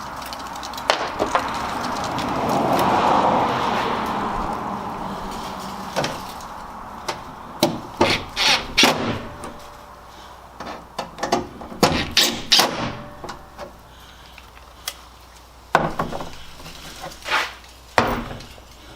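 Clicks and metal clunks of tailgate latch hardware and hand tools as the latch is fitted back into a pickup tailgate: scattered sharp knocks, bunched in a few quick clusters.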